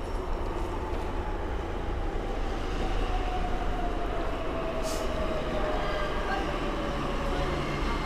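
A rail vehicle running: a steady rumble with a whine that slowly falls in pitch, and a short sharp hiss about five seconds in.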